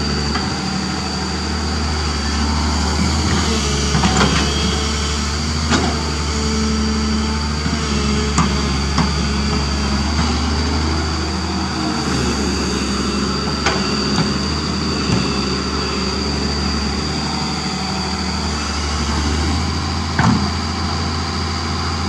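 Doosan DX225LC crawler excavator's diesel engine running steadily under hydraulic load as it digs and swings, with a handful of sharp metallic knocks from the bucket and boom spread through.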